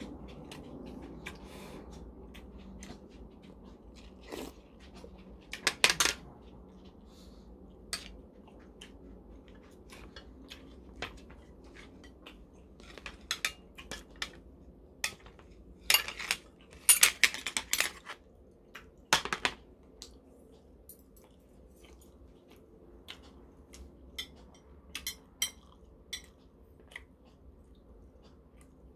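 Metal spoon and chopsticks clinking against ceramic bowls and plates while eating, in scattered sharp clicks. A loud cluster comes about six seconds in, more between sixteen and twenty seconds, and a few lighter ones later.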